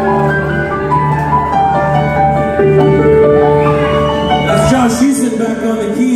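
Live rock band playing a slow passage: held keyboard and guitar chords over a pulsing low note. The pulse drops out near the end, and a voice comes up over the music.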